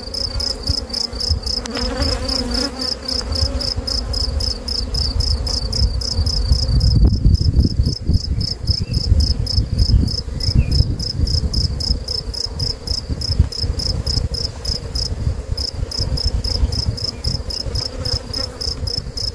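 Honeybees humming around an open hive, with a steady high-pitched chirping in rapid, even pulses and wind rumbling on the microphone, strongest about seven to eleven seconds in.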